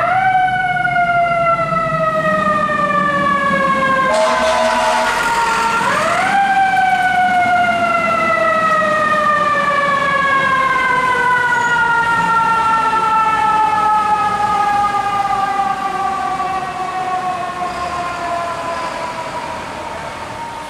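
Fire truck siren wailing. It winds up quickly, then falls slowly in pitch over several seconds. A two-second horn blast cuts in about four seconds in, then the siren winds up again and slowly falls. It fades as the truck pulls away.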